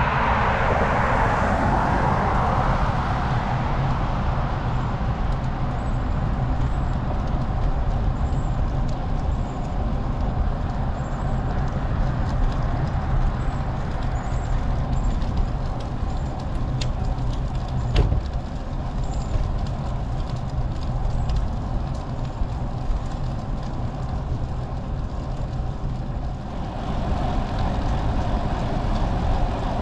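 Wind rush on the microphone of a GoPro riding along with a road bike, mixed with passing road traffic. The rush is louder for the first few seconds and eases off, and one sharp click comes about two-thirds of the way through.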